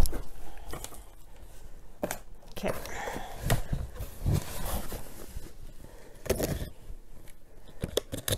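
A cardboard mailing box being handled and scraped, with scattered knocks and rustles.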